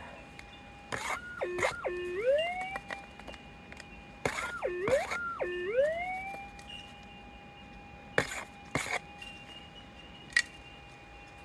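Minelab GPX 6000 gold detector's steady threshold tone, with the pitch swooping sharply down and back up twice, about a second in and again about four seconds in, as it sounds off on a gold nugget target. A few short sharp knocks or scrapes are heard among the swoops and again near eight seconds.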